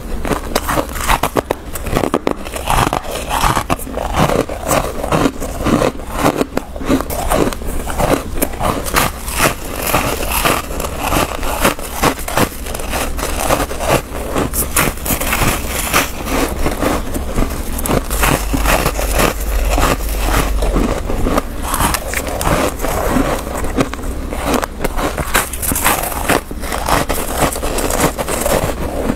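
Close-miked crunching and chewing of chunks of freezer frost, a dense, unbroken run of crisp, crackling bites.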